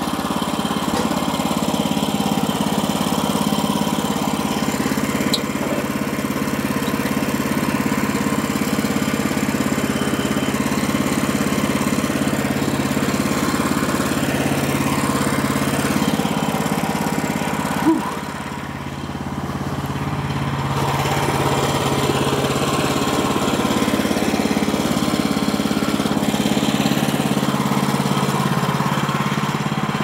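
Small gasoline engine of a Woodland Mills HM130MAX band sawmill running steadily. About eighteen seconds in there is a sharp click, after which the engine sound drops lower for two or three seconds and then comes back up.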